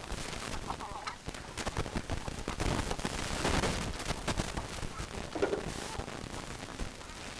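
Chickens with a couple of short clucks, one about a second in and another about five and a half seconds in, amid many irregular clicks and knocks.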